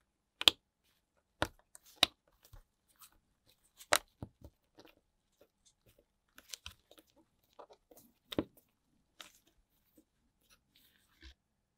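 Gloved fingers handling a GoPro Hero 3+ camera body around its lens: a series of sharp plastic clicks, the loudest about half a second in and around four seconds, with softer ticks and rubbing between.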